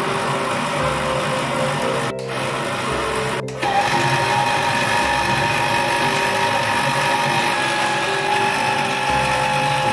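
Electric meat grinder motor running steadily, turning a rod that winds steel wire into a coil spring, under background music. The sound cuts out briefly twice, about two seconds and three and a half seconds in, and a steady higher whine is there from about four seconds on.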